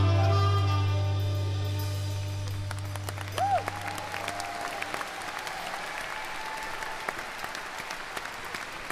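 A live rock band's final chord, bass, electric guitars and saxophone, ringing out and dying away over the first few seconds, while audience applause takes over. A short rising-and-falling whistle from the crowd comes about three and a half seconds in.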